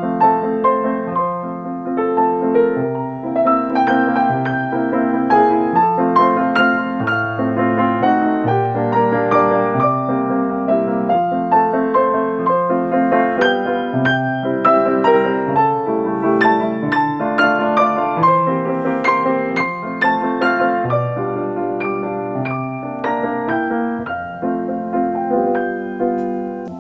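Grand piano played solo: a flowing piece of chords under a moving melody, played continuously and fading away near the end.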